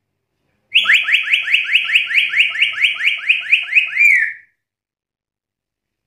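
Black-capped lory giving a rapid run of about fourteen identical whistled notes, each sweeping sharply upward, about four a second. It starts a little under a second in and stops a little after four seconds.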